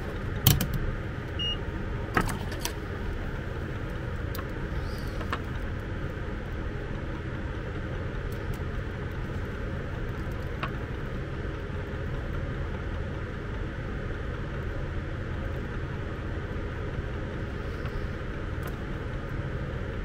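Steady low background hum with a few sharp clicks in the first few seconds and fainter ticks later, from multimeter probes and wires being handled during a continuity check.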